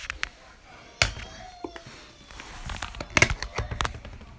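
Handling noise: a few sharp clicks and knocks as the device and phone are moved about, the loudest about a second in and a quick cluster about three seconds in.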